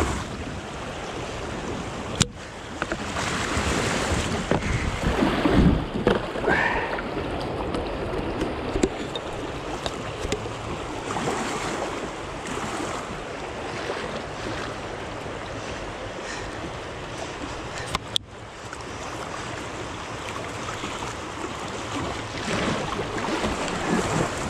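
River water rushing and churning around a kayak running a stretch of rapids, with wind buffeting the microphone in heavier gusts a few seconds in.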